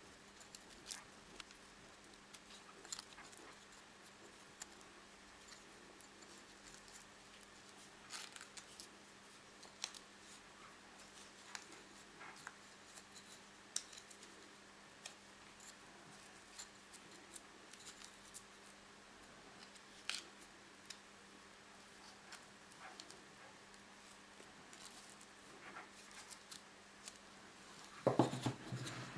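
Faint handling sounds of thin wooden sticks being lashed together with yarn: scattered light clicks and rustles as the sticks knock against each other and the tabletop, with a louder clatter near the end. A low steady hum runs underneath.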